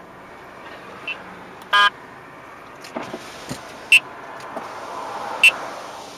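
Radar detector giving short, high beeps about every second and a half, the slow rate of a weak, one-bar K-band alert, with one lower, fuller beep about two seconds in. Under it is the steady hum of the car driving slowly.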